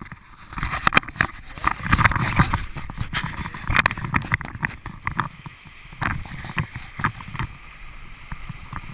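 Vehicle driving slowly over a rough, sandy road, heard from inside the cab: engine and tyre rumble with many irregular knocks and rattles, busiest in the first few seconds and easing toward the end.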